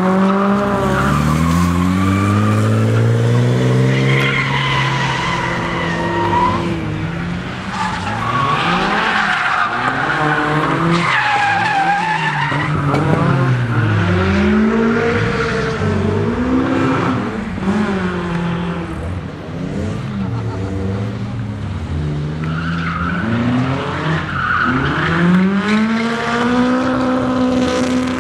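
Drift cars sliding through corners: engines revving up and down again and again, with tyres squealing and screeching.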